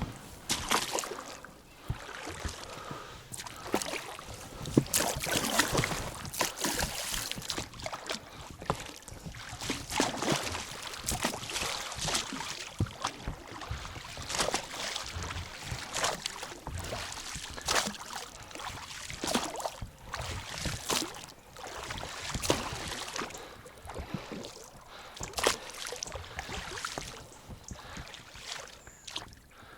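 Small boat being paddled or rowed on a river: irregular splashes and knocks of water and wood, with no steady rhythm.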